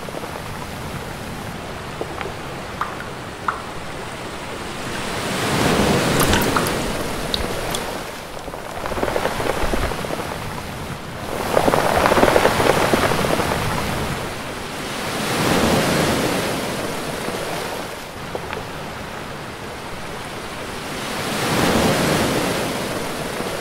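Sea waves surging and washing back, a steady rush of water noise that swells and fades in slow surges every few seconds.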